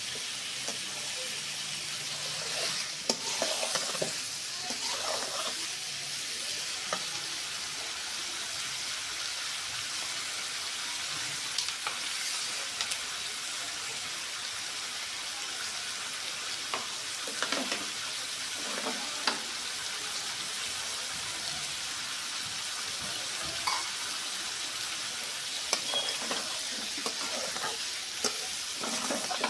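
Pieces of liver (kaleji) sizzling in oil on a hot cooking stone: a steady frying hiss, with scattered short scrapes and clicks of a spatula stirring and turning them.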